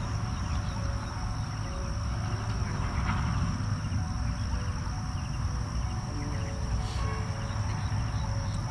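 Steady high-pitched drone of field insects, with faint short chirps above it and a low rumble underneath.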